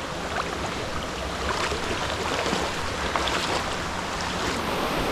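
Steady rush of running water, with a few short, soft taps and splashes on top.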